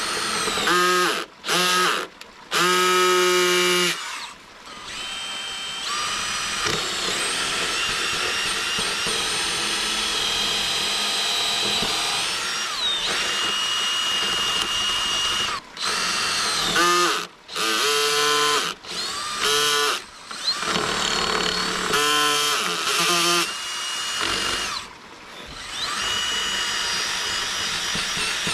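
Cordless DeWalt drill boring into the wooden hub of a waterwheel, around an embedded screw. It goes in several short trigger bursts in the first few seconds, then in longer runs, with the motor whine rising and falling in pitch as the speed changes.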